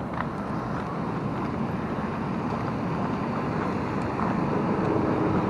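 Steady rush of river water pouring over a dam spillway, growing gradually louder, with wind on the microphone.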